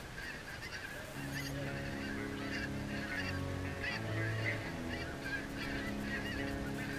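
A flock of snow geese calling overhead, a dense, continuous chatter of many high overlapping calls.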